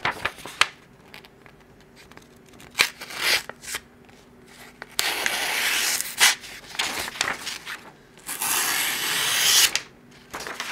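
A freshly sharpened bevel-edge chisel slicing through a held sheet of paper, a test of the edge's sharpness. There are two long hissing cuts, about halfway through and again near the end, between lighter rustles and taps of the paper being handled.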